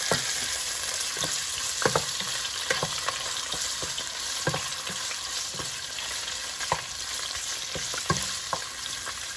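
Sliced pork belly sizzling as it fries in hot oil in a pot, stirred with a wooden spoon that knocks against the pot now and then.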